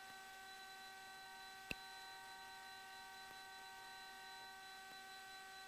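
Faint steady electrical hum with several thin whine tones on the cockpit intercom audio feed, the engines barely heard through the headset line. A single soft click comes about a second and a half in.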